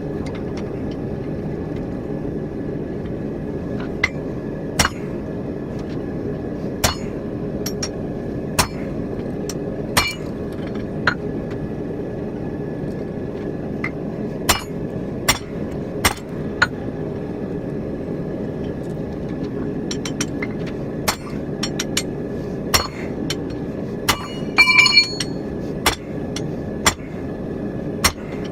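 Blacksmith's hand hammer striking hot steel on an anvil while forging a rounding hammer head, blows landing at an uneven pace about once a second, with a quick run of ringing strikes near the end. A steady low rushing noise runs underneath.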